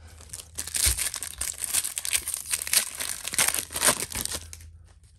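Gold foil wrapper of a trading-card pack crinkling and tearing as it is pulled open by hand, a dense crackle that starts about half a second in and stops a little before the end.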